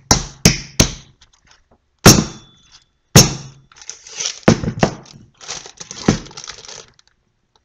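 Hard knocks of a metal loaf pan holding a frozen candy bar against a kitchen countertop: three quick ones in the first second, two louder ones about 2 and 3 seconds in, then rougher scraping and crinkling of plastic wrapping.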